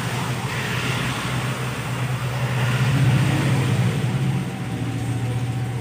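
Heavy rain falling steadily, with a strong low rumble underneath.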